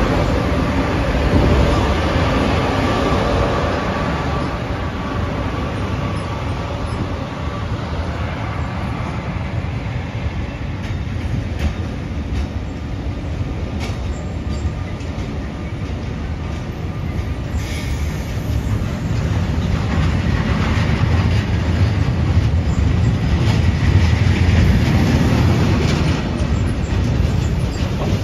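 Railway train running past on the track, a continuous loud running noise with wheels clicking over the rail joints; the sound builds again towards the end.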